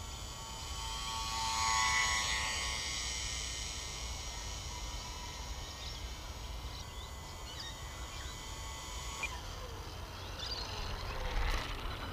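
Small electric motor and propeller of a lightweight RC slow-flier, from a UMX Timber, whining steadily in flight, loudest about two seconds in as the plane passes close. The whine stops about nine seconds in, with wind rumbling on the microphone throughout and a short handling noise near the end.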